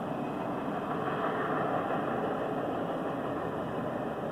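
CSX freight train passing, a steady rumble of its diesel locomotives that swells slightly about a second in.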